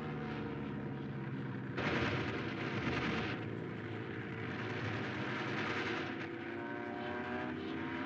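Sound effects of a World War One fighter plane's engine droning, its pitch sliding up and down as it dives and climbs. About two seconds in, a loud burst of machine-gun fire lasts about a second and a half.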